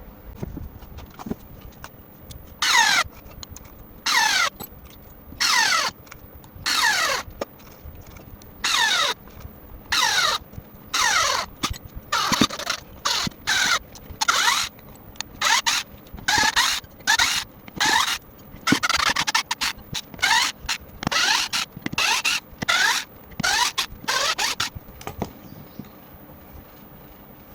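Battery-powered electric screwdriver, fitted with a replacement 18650 lithium-ion cell, run in about twenty short bursts. Each burst is a squealing whine that falls in pitch, a trial of the tool on its new battery.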